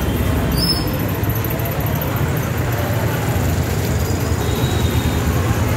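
Busy street noise: a steady low rumble of traffic with indistinct crowd voices.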